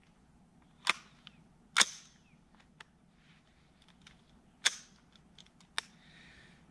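AR-15 carbine being loaded and made ready: a magazine seated and the action worked to chamber a round. Four sharp metallic clacks with a few lighter clicks between them.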